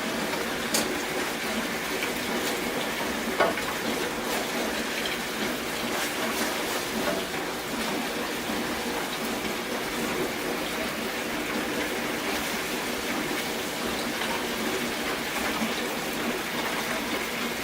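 Curry sauce simmering in a pot on the stove: a steady rushing, bubbling hiss, with a couple of light clicks of a utensil against the pot.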